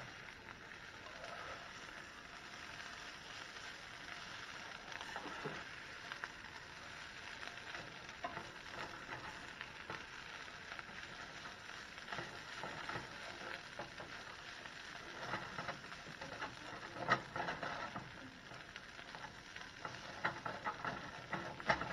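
Green beans and bread crumbs sizzling faintly in olive oil in a stainless skillet as the crumbs brown, with a slotted spatula scraping and tapping against the pan now and then as they are stirred, more often in the second half.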